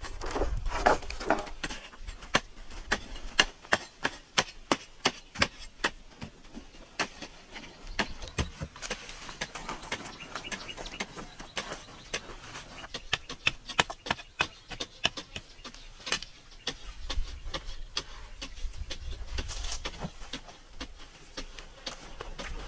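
Repeated sharp knocks and dull thuds of a wooden pole being jabbed and pounded into hard, dry, stony earth to work a post hole. The strikes come irregularly, several a second at times.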